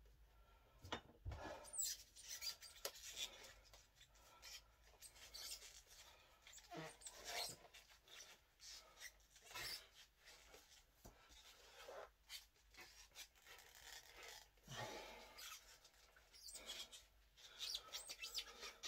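Faint, irregular rustling and rubbing of cloth wraps on a steel bending bar as the hands grip and twist it, in short scattered strokes.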